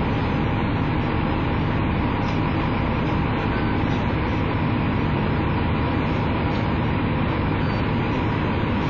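Diesel engine of a Dennis Dragon (KMB ADS-class) three-axle double-decker bus idling steadily while the bus stands still.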